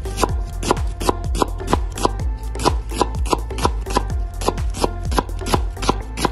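Kitchen knife slicing a red onion on a wooden cutting board, its blade knocking on the board again and again, over background music with a steady beat.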